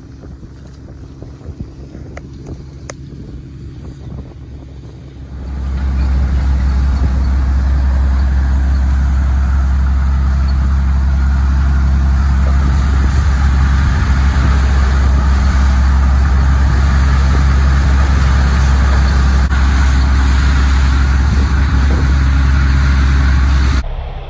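A sesame threshing machine drones at a lower level for the first few seconds. About five seconds in it becomes loud and steady, a deep motor drone with the rushing rattle of dried sesame stalks being fed through the thresher, and it cuts off suddenly near the end.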